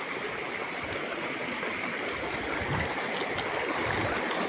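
Steady rush of water flowing over rocks at a mountain stream and waterfall, with a few low rumbles in the second half.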